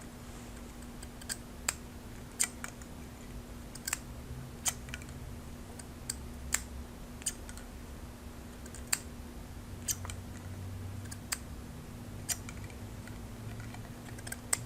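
Freshly sharpened hair-cutting shears snipping a scrap of hair: a dozen or so sharp snips at irregular intervals of about a second, over a faint steady low hum.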